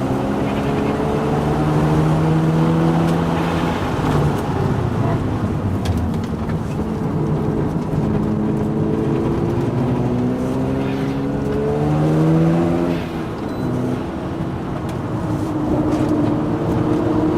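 Mazda RX-7's two-rotor rotary engine running under load, its pitch rising steadily and then dropping sharply near the middle as it changes gear, then climbing again, over steady road noise. The owner reports an abnormal noise and vibration that is still not fixed.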